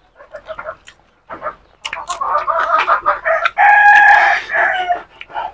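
A rooster crowing: short choppy calls from about a second in build into one long held note around four seconds in, the loudest part, which breaks off shortly before the end.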